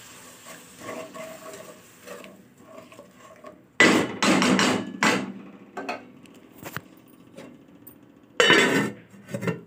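Spatula scraping and knocking against a cooking pan while stirring masala: a loud bout of several quick strokes about four seconds in, a few faint clicks, and another short bout near the end.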